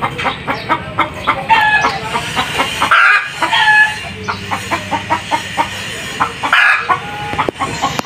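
Chickens clucking: a fast run of short clucks, mixed with several longer pitched calls.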